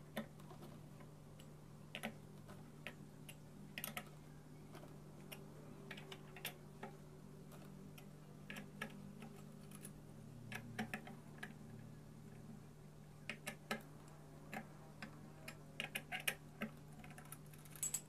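Scattered faint metallic clicks and taps of a 10 mm T-handle socket wrench working the stator bolts of an LG front-loading washing machine's direct-drive motor, getting busier near the end, over a steady low hum.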